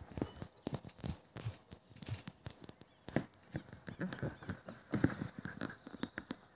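Irregular taps and knocks, several a second, some sharp and some duller.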